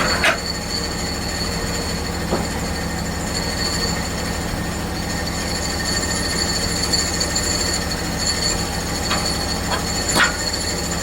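Portable bandsaw mill running steadily, its engine humming under a high, steady whine from the blade, with a few short knocks and clanks.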